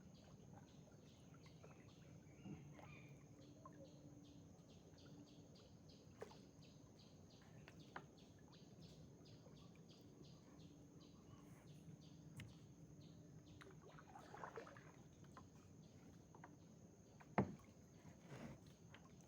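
Quiet outdoor ambience: a faint steady high-pitched tone and rapid high ticking about three times a second, with a few faint bird calls and a sharp knock near the end.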